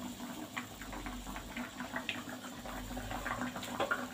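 Yellow chicken opor broth boiling in a wok, with irregular small bubbling pops over a steady low hum.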